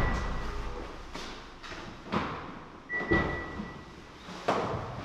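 Irregular clunks and thumps, one every second or so, with a brief high tone near the start and a longer one about three seconds in.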